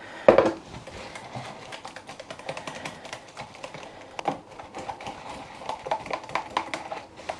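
A knock right at the start, then a run of small irregular ticks: gravy granules being tipped into a plastic measuring jug.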